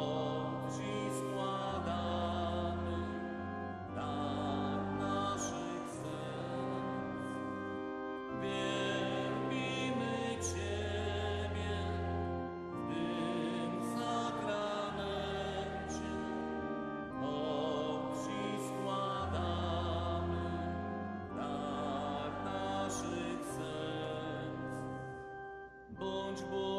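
Slow church hymn sung with vibrato over sustained organ-like chords and a steady bass line. There is a short break between phrases near the end.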